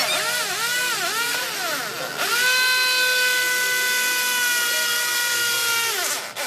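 Corded electric hand drill boring a hole through a metal square-tube frame. The motor's whine dips and wavers as it bogs under load for the first two seconds, then holds a steady high pitch until it winds down near the end.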